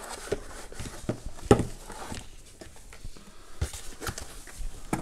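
Cardboard packaging insert being handled and moved: soft scraping with scattered knocks, the loudest about a second and a half in.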